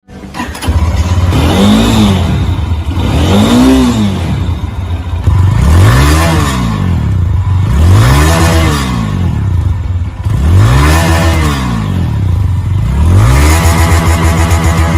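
Italika RT 250 motorcycle engine and exhaust revved about six times in a row, each rev rising and falling in pitch, over a steady low idle.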